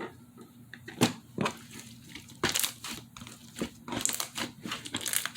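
Slime being squeezed and pressed by hand, giving irregular sticky pops and crackles, with a cluster of them near the end.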